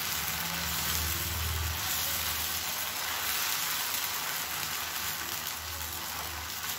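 Semolina-tomato batter sizzling steadily on a hot cast-iron dosa tawa as it is ladled on and spread thin.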